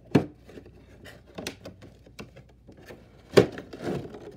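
Cardboard boxes being handled and put away: two sharp knocks, one at the start and one near the end, with light rustling and small clicks between.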